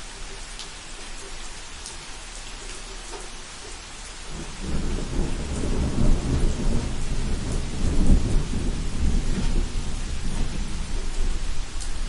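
Steady rain hiss with scattered small drip ticks. About four and a half seconds in, a long low rumble of thunder sets in, loudest a few seconds later, and keeps going under the rain.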